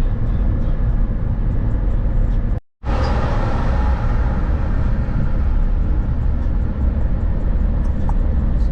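Steady road and engine noise of a moving car, heard from inside, with the sound cutting out completely for a split second about two and a half seconds in.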